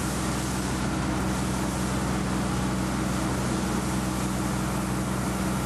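Fire hose spraying a jet of water, a steady rushing hiss, over a constant low machine hum.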